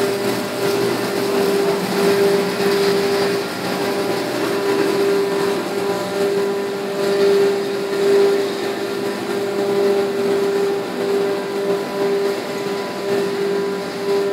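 Flake ice machine running: a steady mechanical hum with a constant noisy rush, unchanging throughout.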